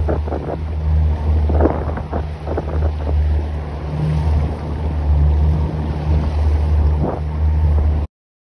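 Wind rumbling on the microphone over an open boat on choppy lake water, with a few small slaps of water against the hull. The sound cuts off abruptly near the end.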